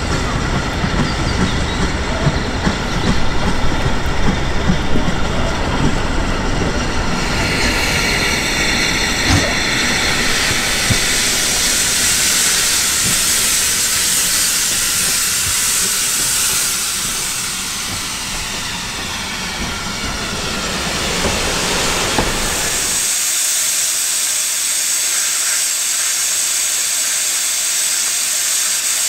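LMS Ivatt Class 4MT steam locomotive 43106 standing with steam hissing out loudly around its cylinders, over a low rumble. The hiss grows stronger a quarter of the way in, and near the end the rumble drops away, leaving only the steady steam hiss.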